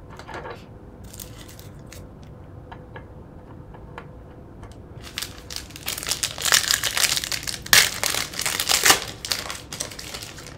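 Foil trading-card pack wrapper crinkling and tearing open, loud and crackly for about four seconds in the middle, after a few light clicks of cards being handled.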